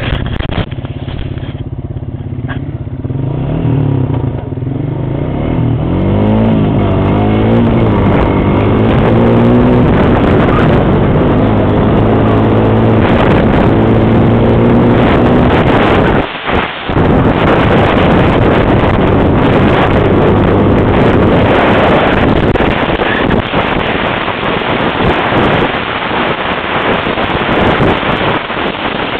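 Honda 350 Rancher ATV's single-cylinder four-stroke engine running under throttle on a dirt trail, its pitch climbing and dropping several times as it accelerates, then holding at speed. A rush of wind on the microphone builds in the second half, and the sound drops out briefly about halfway through.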